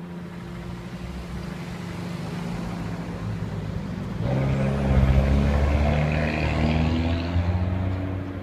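A small car drives past close by: its engine sound swells from about four seconds in and fades away near the end, over a steady low hum.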